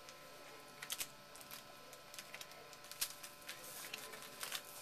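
Baseball cards and foil pack wrappers being handled: quiet, scattered crinkles and clicks, the loudest about one second and three seconds in.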